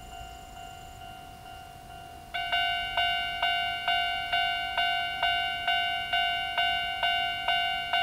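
Japanese railway level crossing alarm of the older standard electronic type starting up about two seconds in, then ringing its bell tone in even, repeated strikes about two and a half times a second as the crossing warns of an approaching train.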